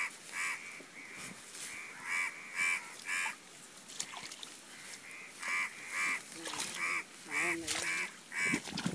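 An animal calling over and over: more than a dozen short, nasal calls, each about a quarter second long, many coming in quick pairs or threes.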